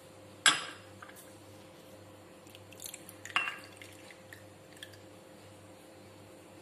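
Water poured from a small cup onto sabja seeds in a ceramic bowl: a sharp knock about half a second in, then soft trickles and drips.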